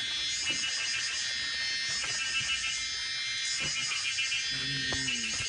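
Steady high-pitched buzzing drone with a fast pulsing trill throughout. Near the end a dog gives a short, low whine.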